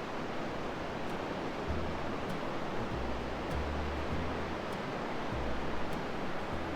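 Pacific Ocean surf, a steady rush of breaking waves.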